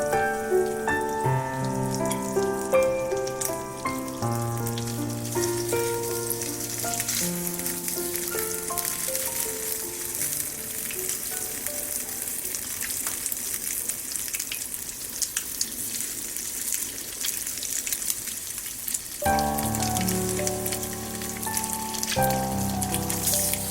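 Food sizzling and crackling in a frying pan, under melodic background music. The music fades out about eight seconds in, leaving only the sizzle, and comes back about nineteen seconds in.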